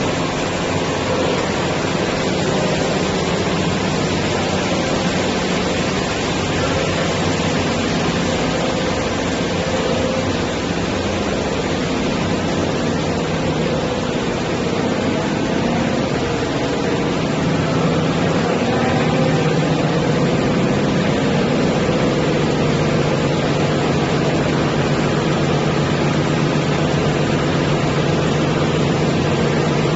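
Silicone wire extrusion line running: a steady machine hum over an even noise, holding a few constant tones. It gets a little louder, with a low hum growing stronger, a bit past halfway.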